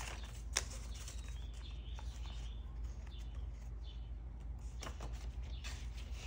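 Paper banknotes and cash envelopes rustling as bills are counted and moved, with a few short flicks, one sharper about half a second in, over a steady low hum.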